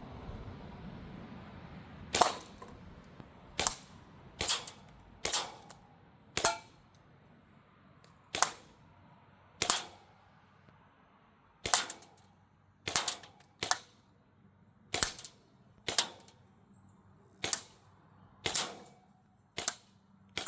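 Crosman M1 BB rifle firing single shots: about sixteen sharp cracks, spaced roughly a second apart, sometimes two close together.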